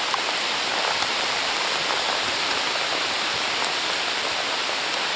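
Rain falling steadily onto a lake's surface: an even hiss of many small drops.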